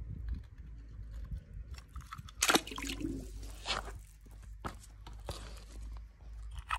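A toy car dropped into pool water, with light handling clicks and two brief splashy knocks about two and a half and three and a half seconds in, over a low steady rumble.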